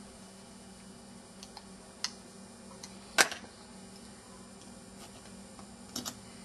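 Plastic housing of an Alcatel One Touch 918D mobile phone clicking as it is prised apart by hand, its snap clips giving. A few sharp clicks, the loudest about three seconds in and a quick double click near the end.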